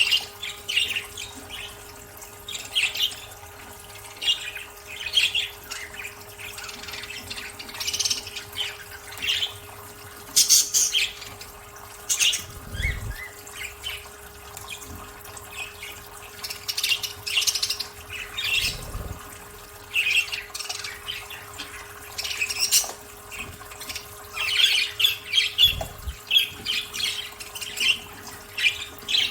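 Budgerigars chirping and chattering in many short, quick bursts, with water splashing as they bathe. A faint steady hum runs underneath.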